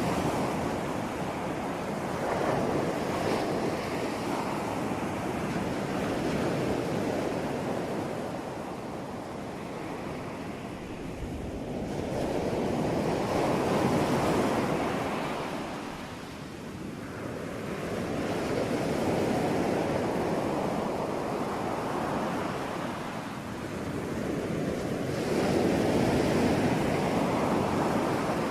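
Ocean surf: waves breaking and washing ashore in slow surges that swell and ease every several seconds.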